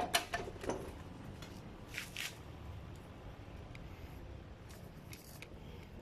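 Handling noise from refitting a front wheel axle and its spacer: a sharp knock at the start, a few small clicks, then two short scrapes about two seconds in, with faint clicks after.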